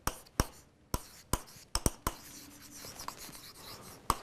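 A stylus tapping and scraping on the glass of an interactive display screen as words are handwritten: a quick series of sharp clicks as the pen tip meets the screen, with soft rubbing strokes between them.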